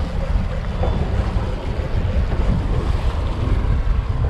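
Wind buffeting the microphone over the rush of water and wake behind a small center-console boat trolling slowly, its outboard running.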